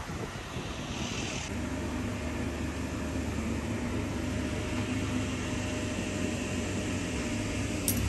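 Steady low drone of a running machine, with a short hiss about a second in.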